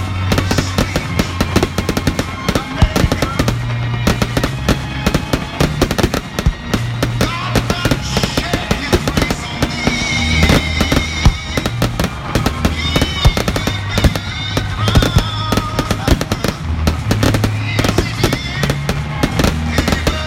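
Fireworks shells bursting and crackling many times over, layered with loud music that has a bass line shifting note every second or so.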